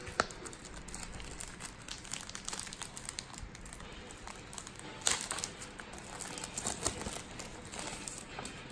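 Paper instruction manual being handled and its pages turned: irregular rustling and crinkling with small clicks, and a sharper crackle near the start and again about five seconds in.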